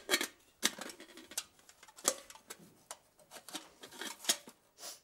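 A series of irregular light knocks and clicks, a few a second with short pauses between them.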